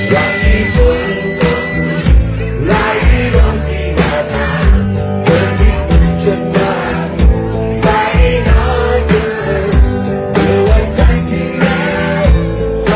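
Live rock band playing a song with singing, acoustic and electric guitars over a drum kit keeping a steady beat.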